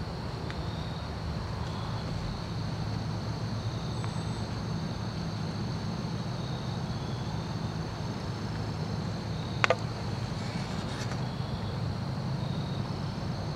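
Outdoor ambience: a steady low rumble with thin, steady high tones above it, broken about two-thirds through by one sharp, loud snap and a fainter knock about a second later.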